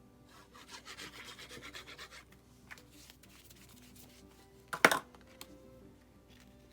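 Cardstock rubbed by hand, a dry scratchy friction for about two seconds as a glued panel is pressed down, then lighter scrapes and a single sharp tap about five seconds in.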